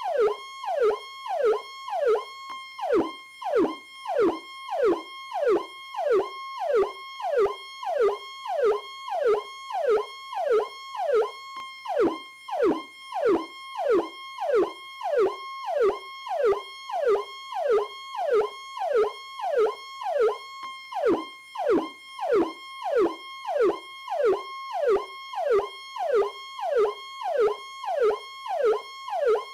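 Police car's electronic PowerCall siren sounding continuously: rapid sweeps that drop in pitch, about three every two seconds, over a steady high tone.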